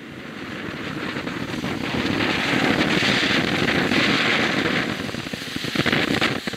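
EyeTrix ground fountain firework spraying sparks: a rushing hiss that grows louder over the first couple of seconds and holds, then breaks into sharp crackling pops near the end.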